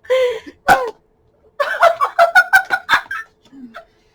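A woman laughing: a short vocal sound falling in pitch right at the start, then a quick run of repeated 'ha' pulses in the middle.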